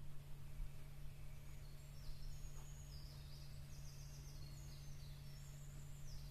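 A small bird singing a run of short, high-pitched notes that step up and down in pitch, starting about a second and a half in. Under it are a steady low hum and a low rumble.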